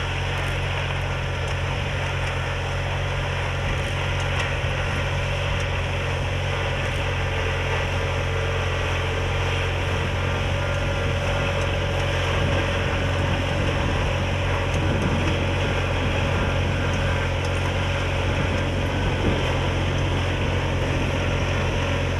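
Engine of a Sakpattana FourJet:S self-propelled crop sprayer running steadily as it drives across the field spraying, a constant low drone with an even hiss over it.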